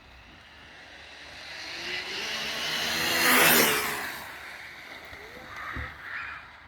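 3D-printed direct-drive RC drag car's electric motor making a fast pass: its whine grows louder for about three seconds, peaks as it goes by, then fades away.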